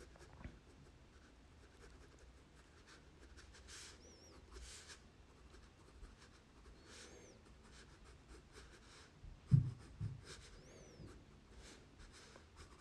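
4B graphite pencil sketching on sulphite paper: faint, scratchy strokes in short runs. A dull thump about nine and a half seconds in.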